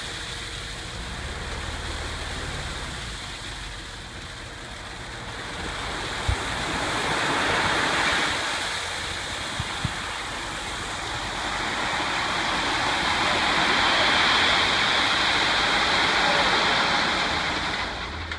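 Crushed gravel pouring out of a tipped dump truck bed through the open tailgate: a steady rushing hiss that swells twice and cuts off sharply near the end as the load runs out. Two sharp knocks come partway through, over the low running of the Ford F-650's engine.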